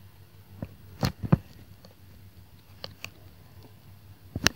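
Stylus tapping and clicking on a tablet screen during handwriting: scattered short sharp taps, a pair about a second in, two faint ones around three seconds and a louder cluster near the end, over a low steady hum.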